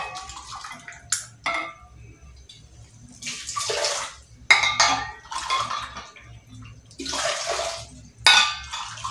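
Water poured from a stainless steel flask into a mug and from the mug into a stainless steel saucepan, in several short pours of about a second each, with a couple of clinks near the start.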